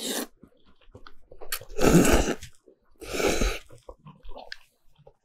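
A person slurping thick wheat noodles in beef broth: two loud, noisy slurps about a second apart, with a shorter one at the very start. Chewing and small clicks of chopsticks on the bowl come between them.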